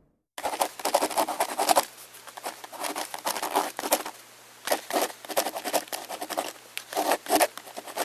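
A sound effect of rapid, irregular sharp clicks and scratchy scrapes in clusters, over a faint steady low hum; it starts about half a second in.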